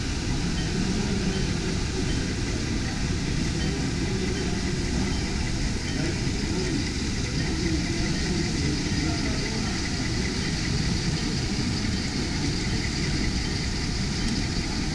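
Steady background din of a busy hall, with indistinct voices mixed in.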